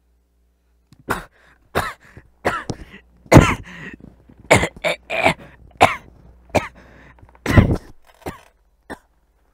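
A person coughing in a long fit: about a dozen short, loud coughs from about a second in until near the end, the strongest in the middle and towards the end.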